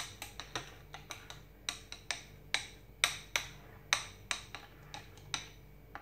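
A metal spoon clinking and tapping against a ceramic bowl as thick barley porridge is smoothed and pressed into shape: short, irregular clinks, about two or three a second.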